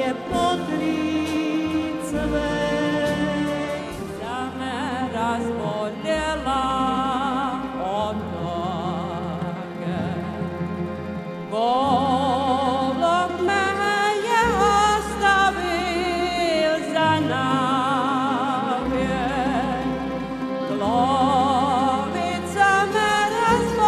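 A woman singing with wide vibrato, accompanied by a tamburica orchestra with violins and a double bass playing stepping low notes. About halfway through, the sound changes abruptly to another passage of the song.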